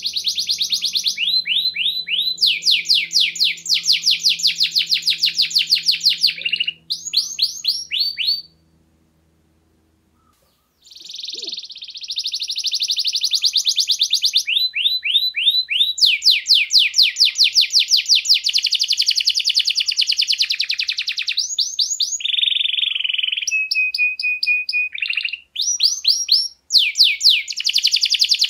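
Domestic canary singing: long runs of fast trills, broken by a pause of about two seconds a third of the way in, with a short held whistle later on.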